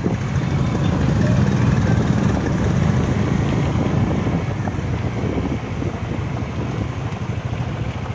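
Motorcycle engines running while riding, a steady low throb, with wind rumbling on the microphone. It is a little louder in the first few seconds.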